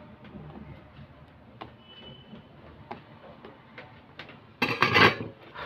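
Light clicks and taps of wires, parts and tools being handled on a workbench, with one louder burst of handling noise near the end.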